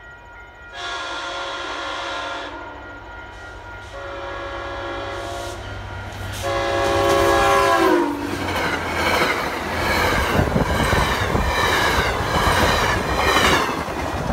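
MBTA commuter rail diesel locomotive sounding its horn in three long blasts at a grade crossing, the last blast dropping in pitch as the locomotive passes. The coaches then go by with loud, rhythmic wheel clatter, over a steady ringing from the crossing bell.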